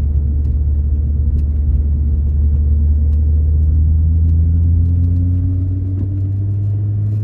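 Audi TT RS's turbocharged 2.5-litre inline-five engine droning at low revs in fourth gear, heard inside the cabin. Its pitch rises gently over the second half as the revs climb and the car picks up speed.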